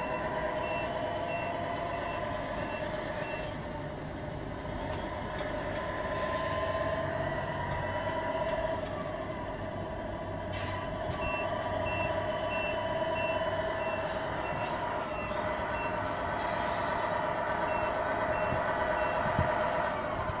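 RC truck sound unit in a Tamiya Scania R470 model playing a steady simulated truck engine, with a reversing beeper of about two beeps a second coming in three stretches as the truck backs up. Two short air hisses sound in between.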